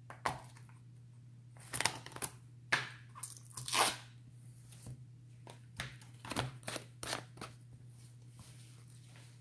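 Rubber-gloved hands handling a plastic spice shaker: scattered clicks, crinkles and rustles, loudest about four seconds in.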